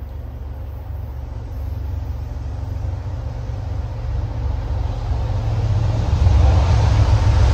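EMD F40PH-3C diesel locomotive approaching, its engine rumble and wheel noise growing steadily louder as it nears.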